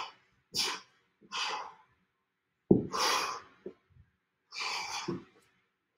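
Hard breathing from exertion: a series of short, sharp exhalations with silence between them, the loudest and sharpest about two and a half seconds in.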